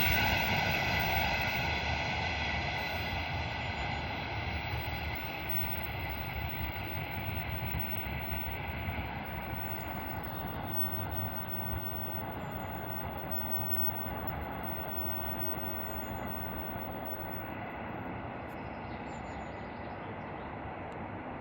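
Freight train rolling away on the rails, its rumble fading steadily into the distance.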